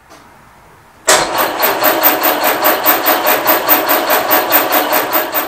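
The 1948 Ford Prefect's 1172cc four-cylinder sidevalve engine being cranked on the starter motor, starting about a second in as a steady rhythmic chug of about six beats a second with a thin high whine over it. The engine does not fire: no fuel is reaching the carburettor, whose float chamber is bone dry.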